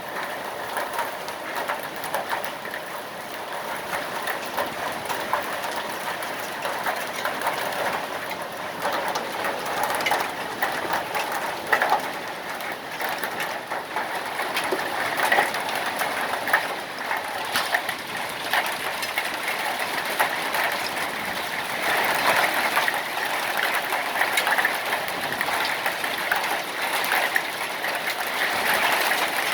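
Hail falling hard, a dense clatter of countless small stones striking, with heavy rain mixed in. It grows heavier toward the end.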